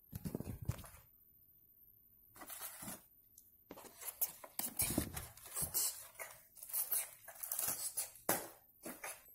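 Cardboard being handled: irregular rustles, scrapes and light knocks of the cardboard cupboard's panels, with a short pause about a second in.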